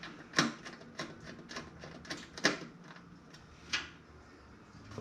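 A series of sharp clicks and knocks, irregularly spaced, from hard parts being handled and fitted during assembly of the toaster oven PC; the loudest come about half a second in and about two and a half seconds in.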